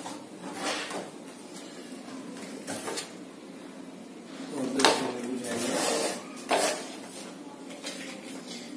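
A small cardboard retail box and its plastic insert tray being handled and pulled apart: irregular scraping and rustling with a few light knocks, the sharpest about five seconds in.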